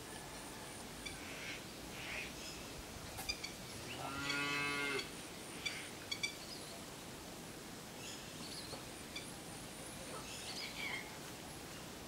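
A single low, drawn-out animal call about a second long, some four seconds in, with faint bird chirps now and then around it.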